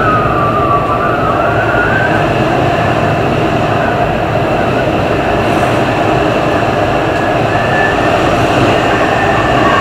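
Storm-force wind blowing hard and steadily, with a whistling howl that dips and rises in pitch near the start and fainter whistles later.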